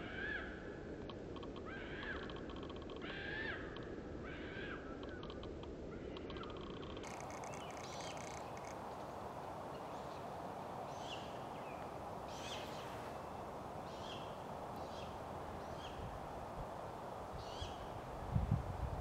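Great gray owl nestlings calling repeatedly over a steady background hiss: longer rasping calls in the first seven seconds, then shorter, higher calls about once a second. A few low rumbles near the end.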